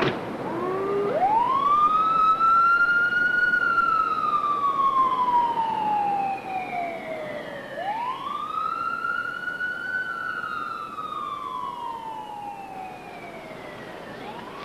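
Ambulance siren wailing: it starts up about half a second in, and each cycle climbs quickly in pitch and then falls slowly over about six seconds, twice, with a third rise beginning near the end. It grows fainter as the ambulance drives away.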